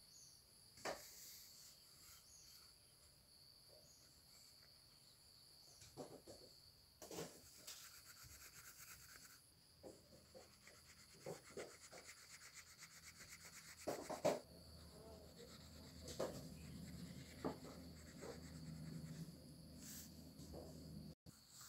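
Faint rubbing and scratching of a drawing tool colouring on paper, with scattered light clicks and handling knocks over a faint steady high hiss.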